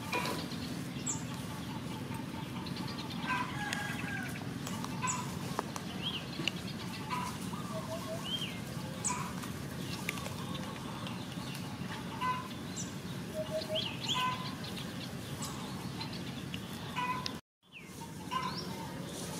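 Outdoor ambience: many short, scattered animal calls and chirps over a steady low background noise. The sound drops out for a moment near the end.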